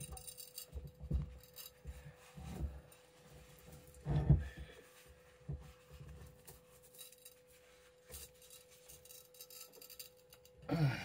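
Gloved hands bending metal antenna tubing around a glass wine bottle: scattered soft handling thumps and rubs, the strongest about four seconds in, over a steady faint hum.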